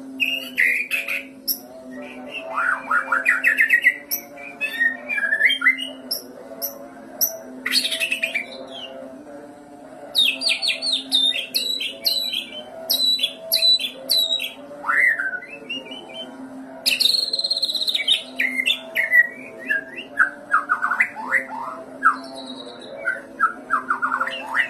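White-rumped shama (murai batu) singing a long, varied song of rapid whistles, steep downward sweeps and trills in bursts with short pauses, rich in mimicked phrases (isian).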